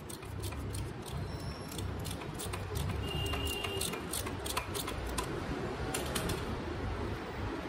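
Socket ratchet clicking in quick runs as the handle is swung back and forth, undoing a nut on an old moped frame, with a brief high squeak about three seconds in. A steady low rumble runs underneath.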